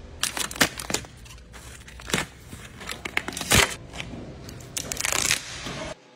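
Protective plastic film and transport wrap on a new car being peeled off and handled: a run of irregular crinkling, tearing rustles and crackles, loudest about half a second in and again around three and a half seconds in, cutting off suddenly near the end.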